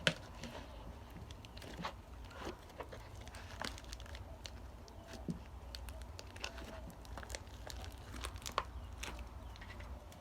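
Homemade sound effect for going through thick, oozy mud: irregular crinkling and crackling clicks, made by hand.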